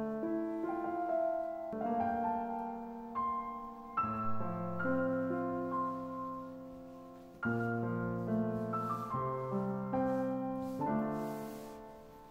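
Background piano music: slow, gentle chords struck one after another, each left to ring and fade.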